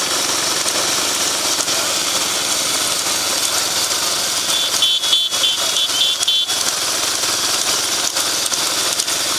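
Motor vehicle engines running amid a steady rush of noise, with a high, pulsing beep of short repeated blips for about two seconds midway.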